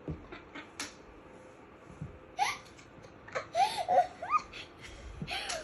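A small child's soft squeaky vocal noises and giggles: a few short squeals that rise and fall in pitch, scattered through otherwise quiet moments.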